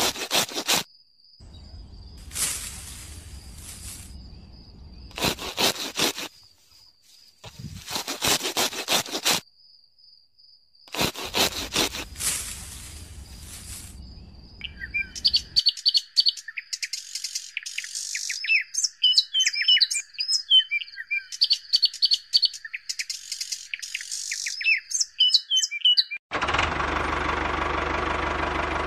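Fresh green grass rustling and snapping in loud bursts as it is pulled up and handled, over a faint steady high whine. Then birds chirping for about ten seconds, and near the end a small motor starts running steadily with a knocking, engine-like sound.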